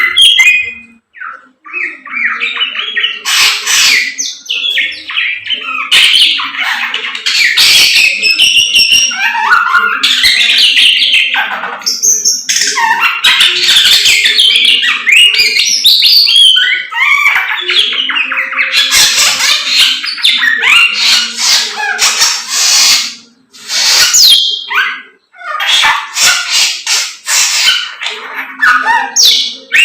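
Caged samyong songbird in full, loud song: a dense, almost unbroken run of chirps, trills and whistles, with short pauses about a second in and again near the three-quarter mark.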